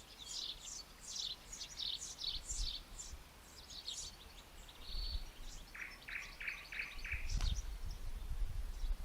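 Wild birds singing: a quick string of short, high, falling notes, then a run of five lower repeated notes about six seconds in. A thump with low rumbling about seven and a half seconds in is the loudest moment.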